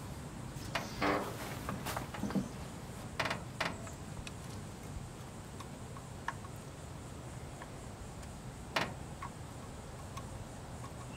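Scattered small metallic clicks and taps of a screwdriver and screws against the distributor as a Pertronix electronic ignition module is screwed in, with the sharpest click about nine seconds in.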